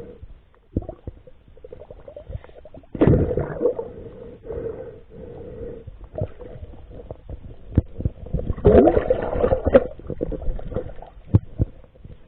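Muffled water gurgling and sloshing, heard as if underwater while spearfishing, with scattered clicks and knocks. Louder bursts come about three seconds in and again around eight to ten seconds.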